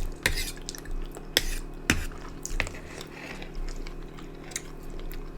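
Scattered light clicks and clinks of cutlery and mussel shells against dishes during a meal of mussels, over a steady low hum.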